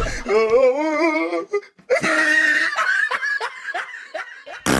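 A person laughing and giggling, in two stretches with a brief break about a second and a half in; a short sudden burst of noise near the end.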